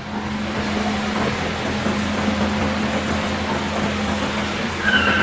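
A steady mechanical hum over an even hiss, with a brief high-pitched tone near the end.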